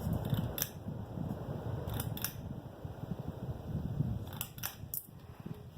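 42-inch Litex hugger ceiling fan running on high with a low, fluttering rumble, which the owner says is a lot of noise for high speed, while the fan wobbles a little. A few sharp clicks come now and then, about a second or two apart.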